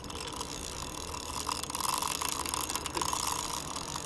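Spinning reel's drag clicking in a rapid, continuous ratchet as a big sturgeon pulls line off against a very tight drag, swelling a little midway.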